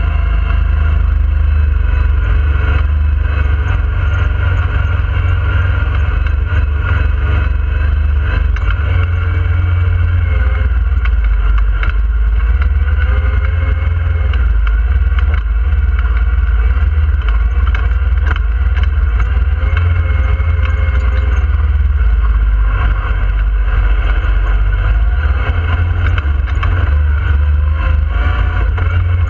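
Yamaha YXZ1000R side-by-side's three-cylinder engine running under a driver's throttle, its pitch rising and falling repeatedly as the machine is driven over a dirt trail. A heavy low rumble lies under it, heard from inside the cab.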